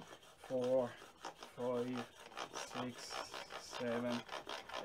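A plane blade held in a Veritas Mk II honing guide is rubbed back and forth on a water stone, with rhythmic scraping strokes. The guide's cambered roller is tilted to one side to camber the edge, rolling off the blade's corners. Short, low, voice-like tones come about once a second, in time with the strokes.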